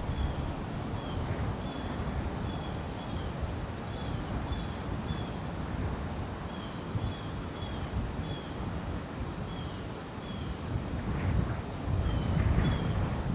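Wind buffeting the microphone in a steady low rumble, with a run of short, slightly falling high chirps repeating about once or twice a second over it.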